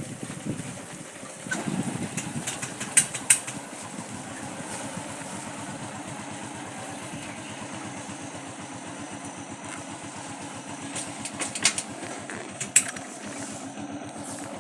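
Motorcycle engine running steadily at a low, even speed, with a few sharp clicks or knocks over it.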